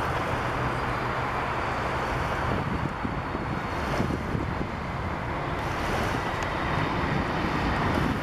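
Steady roar of a Boeing 747-400's four Rolls-Royce RB211 jet engines as the airliner touches down and rolls out along the runway, swelling slightly near the end.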